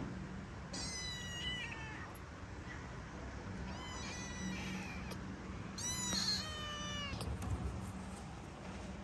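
Young black kitten meowing three times, high-pitched calls of about a second each that fall in pitch at the end.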